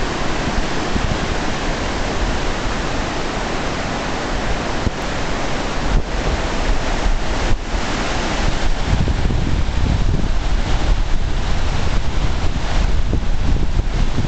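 Muddy river in full flood, rushing fast over rocks and debris: a loud, steady noise of churning water, its low end growing stronger about halfway through.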